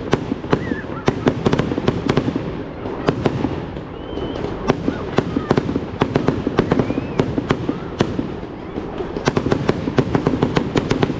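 Aerial fireworks display: shells bursting in a rapid series of sharp bangs and crackling reports, with a dense run of them near the end.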